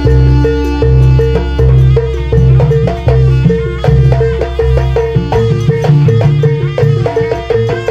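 Live Javanese gamelan music for a buto dance: ringing gong-chime notes repeating over a steady beat of low drum strokes, with the drumming getting busier about five seconds in.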